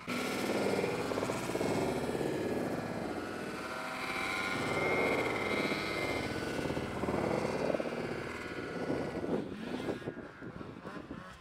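Snowmobile's two-stroke engine running hard as the sled ploughs through a deep snow drift. Its pitch climbs to a higher whine about four to six seconds in, and it drops off near the end.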